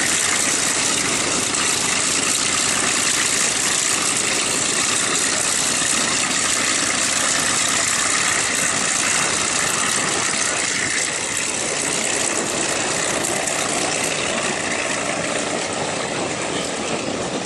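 Radial piston aircraft engines of a World War II warbird running steadily on the ground, easing slightly about two-thirds of the way through.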